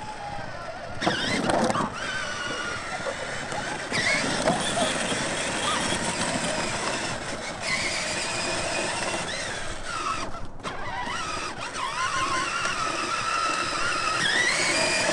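Battery-powered Power Wheels Grave Digger ride-on toy driving, its electric drive motors and plastic gearboxes whining under the load of two riders over pavement and dirt. The whine wavers in pitch as the load changes and rises near the end as it climbs.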